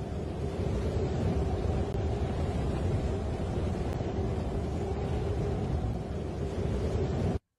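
Steady low rumbling noise with no clear pitch, like a distant engine or traffic drone. It cuts off abruptly near the end.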